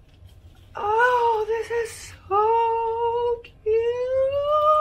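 A dog howling and whining in three long, held notes, the last one rising in pitch.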